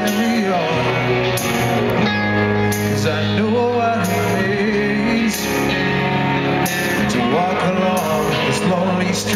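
Live rock band playing loud through a club PA: electric guitars, bass and drums, recorded from the audience.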